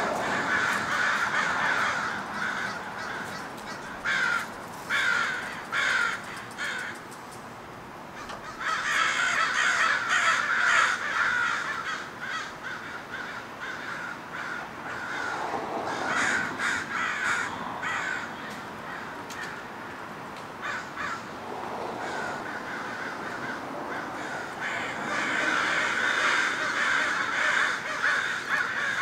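American crows cawing in repeated runs of caws, with stretches where several call over one another, busiest about a third of the way in and again near the end.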